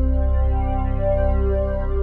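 Background music: sustained synthesizer and keyboard chords with slowly changing notes.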